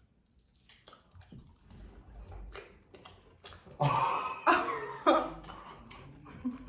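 Faint small clicks and rustles, then about four seconds in three short, loud bursts of a person's voice without words.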